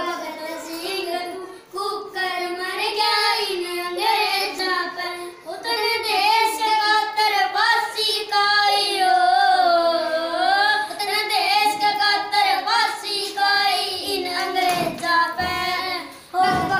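Schoolboys singing a song in a child's voice, a continuous melody held on long notes without instruments.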